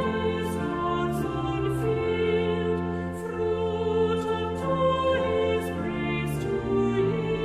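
A hymn being sung by church voices over sustained accompaniment, the chords changing about every second.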